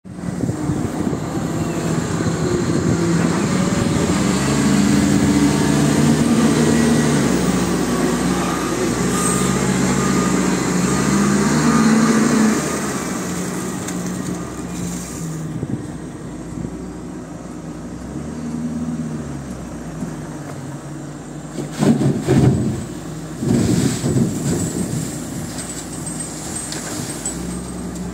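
Cat 966 wheel loader's diesel engine working hard, its pitch stepping up and down as it drives and lifts a loaded bucket of sand, then easing to a lower, quieter note. Near the end come a couple of loud rushing bursts.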